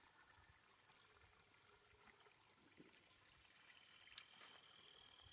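Near silence with a faint, steady, high-pitched insect trill; a single short click about four seconds in.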